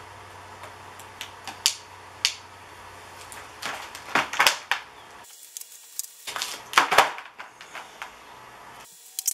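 Scrap pieces clinking and scraping in a metal tray as they are handled and sorted, with clusters of louder clattering knocks about four and seven seconds in.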